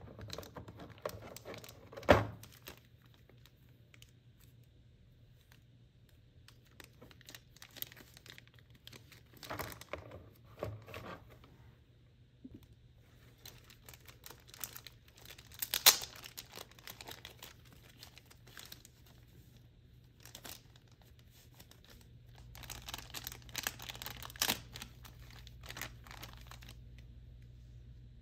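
Figure packaging being unwrapped by hand: crinkling and tearing of plastic and paper wrapping, with sharp clicks from a clear plastic blister tray, two louder clicks standing out. The crinkling grows denser toward the end.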